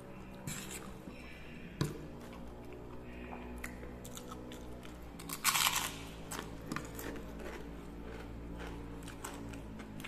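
Close-up eating: a seroja cracker, a crisp Sundanese fried snack, crunched loudly about halfway through, amid chewing of fried instant noodles and a few short sharp clicks.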